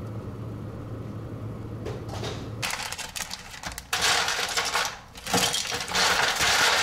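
A low steady hum, then about two and a half seconds in, ice cubes clattering and rattling loudly in bursts as they are scooped from a refrigerator's ice-maker bin into a plastic zip-top bag.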